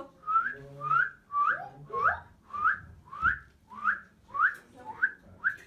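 A run of about ten short whistles, each a quick upward sweep, evenly spaced at about two a second.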